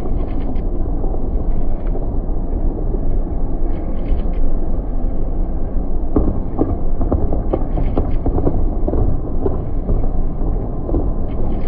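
Fireworks going off: a continuous rumble of overlapping bursts, with many sharp cracks coming in quick succession from about six seconds in.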